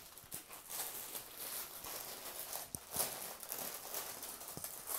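Soft rustling of a pure silk stole being handled and spread out, with a couple of light knocks about three seconds in.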